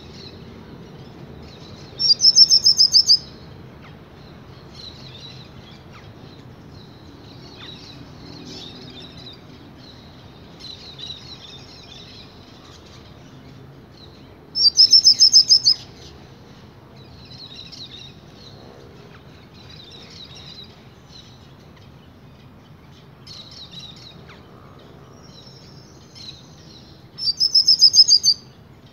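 Young pintassilgo finch singing: soft, scratchy twittering phrases, broken three times by a loud, rapid trill about a second long, roughly every thirteen seconds.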